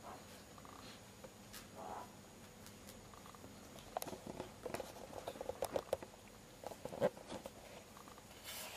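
Pet meerkat scrabbling at and tussling with a fluffy yellow string toy on carpet: a run of quick, light taps and rustles through the middle, with a brief brighter rustle near the end as the toy is flicked away.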